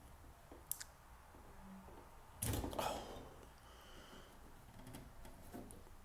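Faint handling clicks and rustles from fingers working the push-on spade connectors on a tumble dryer motor's start capacitor, with one small click under a second in and a louder, short rustle about two and a half seconds in.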